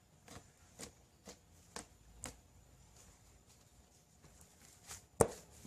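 EVA foam clay mixed with glue into a slime being squeezed and stretched by hand, giving short sticky clicks about twice a second, then one sharp, louder click about five seconds in.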